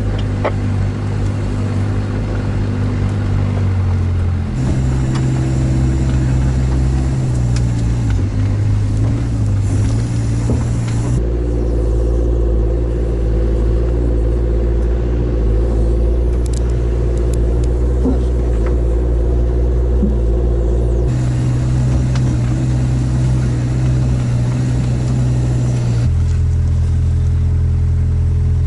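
All-terrain vehicle engine running steadily under load, heard from inside the cab. Its pitch and tone jump abruptly several times as different stretches of driving are cut together.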